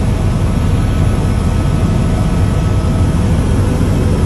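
Loud, steady low rumble of a moving vehicle.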